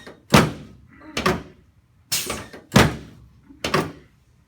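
A chiropractic adjusting table thudding as adjustments are delivered: five sharp thuds, roughly a second apart.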